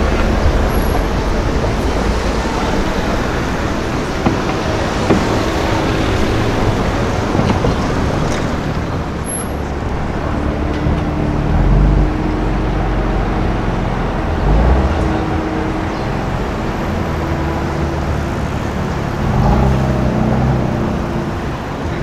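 Street traffic with car engines running at low speed: a Mercedes-Benz SL convertible pulling away, then a BMW M2's turbocharged straight-six running in slow traffic. The engine note is steady and swells briefly three times in the second half.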